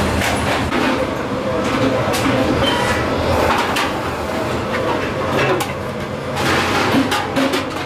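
Electric motor of a roller machine running with a steady hum, while sheet-steel motorcycle fuel-tank halves scrape and rattle in repeated bursts as they are handled and their edges fed through the rollers.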